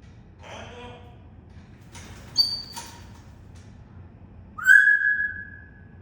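Pet parrot whistling: a brief high chirp about two and a half seconds in, then one long, loud, steady whistle near the end.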